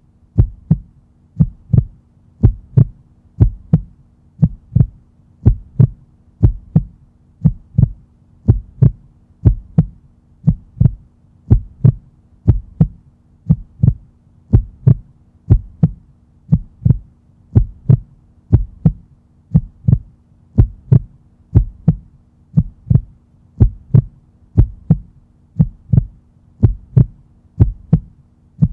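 Human heartbeat: a steady, regular lub-dub, the first and second heart sounds made as the heart valves close, about two thumps a second.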